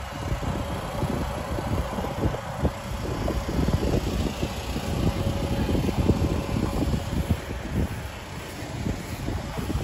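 Wind buffeting the microphone in irregular low gusts, with the steady hum of the inflatable slide's electric blower faint beneath it.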